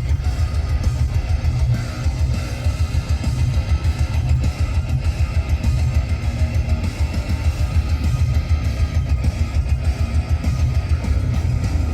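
Music with guitar and a driving beat.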